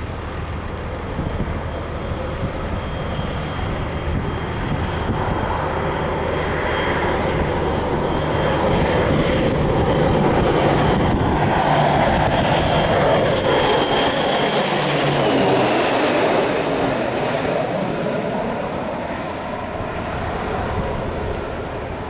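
Beechcraft B200 Super King Air's twin PT6A turboprop engines on landing approach, a low propeller drone under a high turbine whine. It grows louder as the plane passes close by about two-thirds of the way in, the whine dropping in pitch as it goes past, then fades as it reaches the runway.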